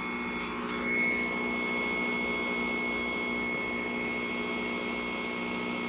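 1969 Zenith tube television giving off a steady buzz, with a thin high tone above it.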